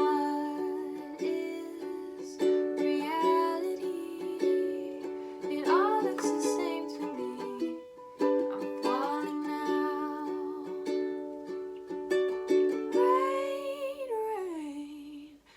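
Ukulele strummed steadily under a woman's singing voice, which holds notes and slides between them, strongest around the middle and near the end.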